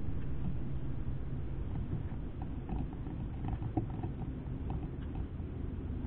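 A bird pecking and picking through seed in a steel feeder bowl right at the microphone: faint scattered ticks and crunches over a steady low rumble.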